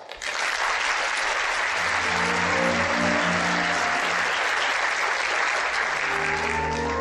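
Theatre audience applauding, starting suddenly and holding steady before easing off near the end. Orchestral music plays underneath from about two seconds in and grows louder near the end.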